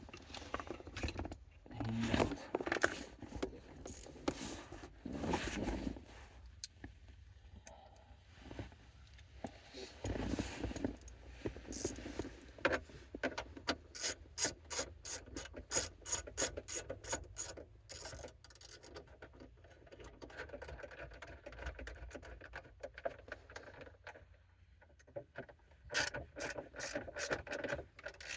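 Hands refitting a car's under-dash plastic trim panel: rubbing, scraping and knocking of parts being worked into place, with runs of rapid clicking about halfway through and again near the end.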